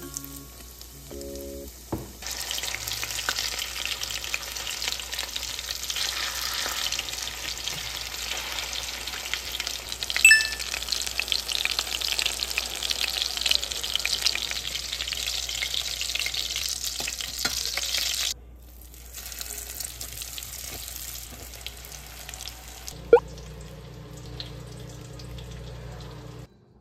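Panko-breaded chicken cutlets shallow-frying in oil in a pan: a steady crackling sizzle, with a single sharp tap about ten seconds in. The sizzle drops away about two-thirds of the way through.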